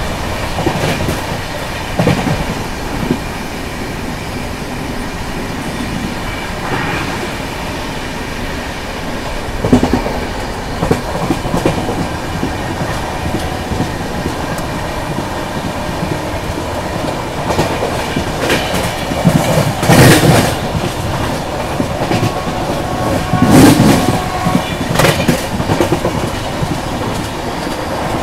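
Ganga Kaveri Express passenger coaches running along the line: a steady rumble with the clickety-clack of wheels over the rails. Louder clattering bursts come about ten, twenty and twenty-four seconds in.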